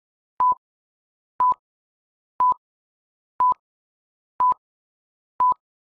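Six short electronic beeps, all at the same steady pitch and evenly spaced about one a second, with dead silence between them.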